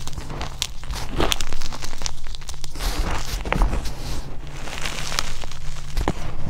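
Hands digging into and squeezing crushed gym chalk powder and crumbled chalk pieces: soft, irregular crunching and crackling as the chunks break and the powder packs.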